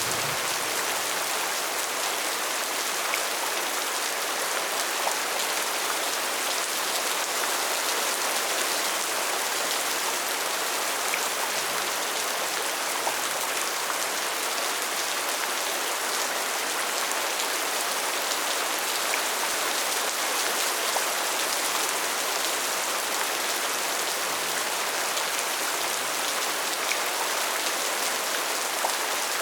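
Steady rain falling, an even hiss of many drops with occasional single drop ticks standing out.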